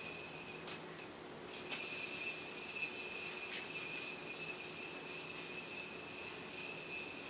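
Bounty Hunter yoyo spinning on its string with a steady high whir. The whir breaks off briefly about a second in and comes back louder after a click, as the yoyo is caught and thrown again.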